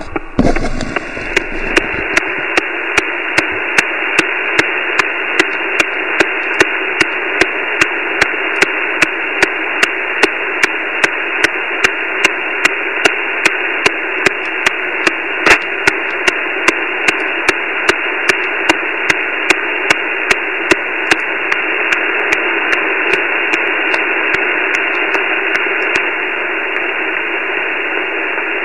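Shortwave receiver's single-sideband audio on the 17-metre band: a steady hiss with a regular ticking of impulse interference, about two clicks a second, which the operator suspects comes from somewhere in the neighbourhood. About three-quarters of the way through, the clicks fade out as the Flex 5000's noise blankers are engaged, leaving the hiss.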